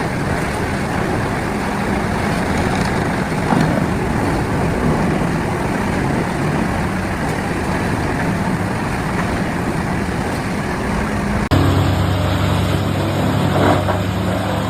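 Heavy diesel-powered wood chipping machine running steadily at working speed. About eleven and a half seconds in, the sound cuts abruptly to a different engine with a steadier low hum.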